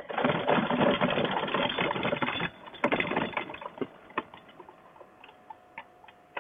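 Paramotor trike rolling out over rough grass with its engine dead, a loud rattling rumble of the frame and wheels. It stops about two and a half seconds in, comes back in a shorter burst, then gives way to scattered light clicks as the trike comes to rest.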